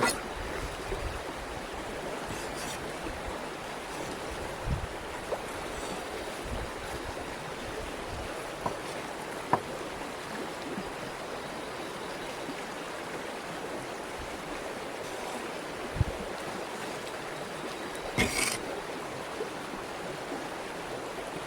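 Steady rush of running water, like a stream, with a few scattered soft knocks and clicks, the loudest about three seconds before the end.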